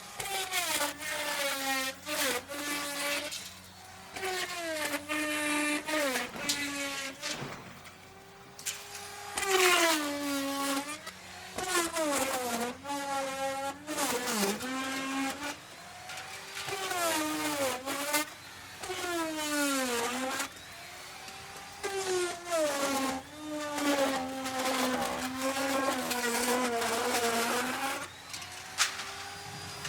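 Electric wood router running at high speed and cutting wood in a series of passes: each time the bit bites in, the motor whine drops in pitch under load and grows louder and rougher with cutting noise, then climbs back up and quietens between passes.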